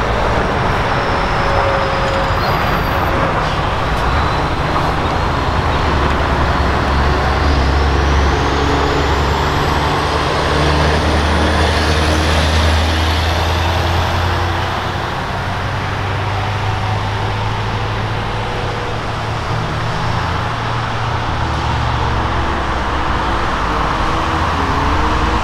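Scania 143M's V8 diesel engine pulling a car-transporter laden with cars uphill under load. Its deep engine note builds as the truck approaches, is loudest as it passes about halfway through, then eases off as it climbs away, over steady road noise.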